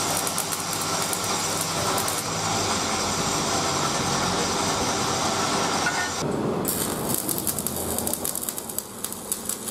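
Angle grinder running against steel for about six seconds. After a short drop, the fast, irregular crackle of arc welding on the steel frame follows.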